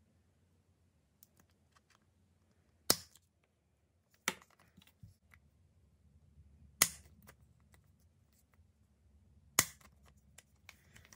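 Metal wheel axles of a TootsieToy Ford Bronco snapping into the axle mounts of its plastic interior piece: four sharp snaps a second or more apart, with faint handling clicks between them.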